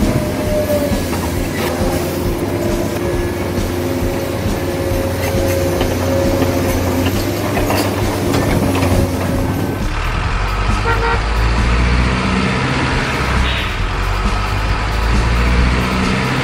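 Truck sound effects: a heavy truck horn sounding held notes that step up and down in pitch over an engine running. About ten seconds in the sound cuts to a deeper engine rumble with short horn notes.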